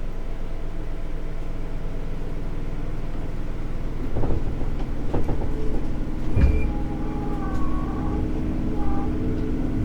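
JR 211 series electric train running, with a steady rumble of wheels on rail. A cluster of knocks comes between about four and six and a half seconds in, and thin wavering whining tones come in after them.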